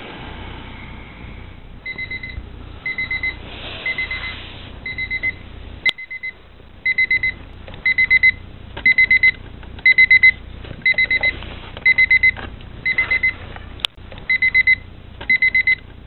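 Digital bedside alarm clock beeping in quick groups of four high beeps, a group about every second, louder partway through. Two sharp clicks stand out between the groups.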